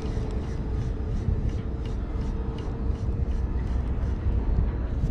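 A motorboat's engine running steadily: a low rumble with a faint steady hum through it.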